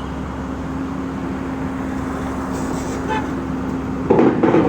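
Komatsu excavator's diesel engine running steadily. About four seconds in there is a louder, rough burst of noise.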